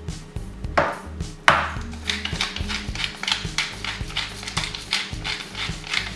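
Salt shaken over a pan of ragout in two quick bursts, then a pepper mill grinding with a rapid run of small clicks, about four or five a second, from about two seconds in.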